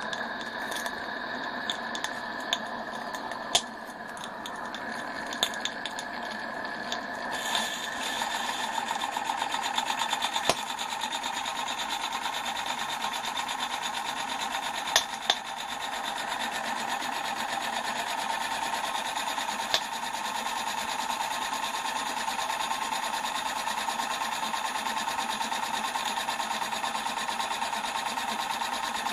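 Accucraft Ruby live-steam locomotive running on steam with its wheels spinning freely off the track: a fast, even mechanical chatter of the cylinders and motion over a steady hiss, getting louder about seven seconds in, with a few sharp clicks.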